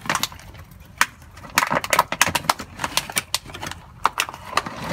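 Thin plastic of a cut PET bottle crinkling and crackling as it is pried apart around a soil-filled root ball. Irregular clicks and crackles, thickest in the middle.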